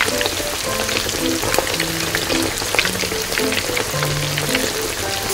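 Tomato-based seafood sauce with clams and shrimp sizzling in a small metal pan, a steady hiss dotted with many fine crackles. Light background music with short melodic notes plays along.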